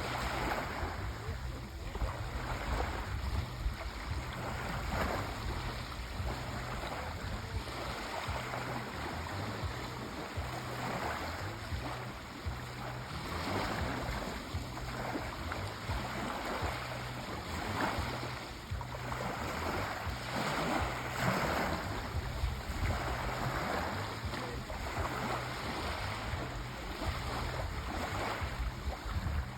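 Sea waves washing in continuously, with a steady low rumble of surf and repeated swells of hiss as waves break and wash.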